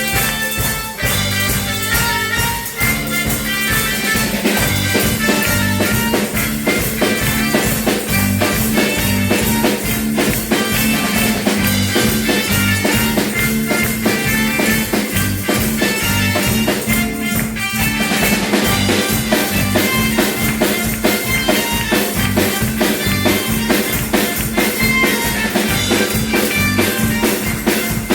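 Music with drums and guitar, a steady beat over a held low note, with a brief break a little past the middle.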